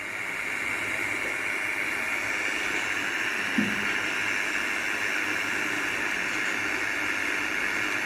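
Steady loud static hiss from a home theatre speaker driven by its newly fitted TDA2030 amplifier IC, switched on for testing; it starts and stops abruptly.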